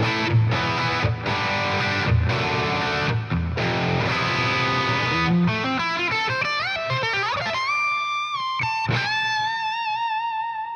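.strandberg* headless multiscale electric guitar with MF Prog humbucking pickups, played with a distorted tone: a heavy rhythmic riff with abrupt stops, then a lead line with slides and bends. It ends on a long note held with vibrato that rings out.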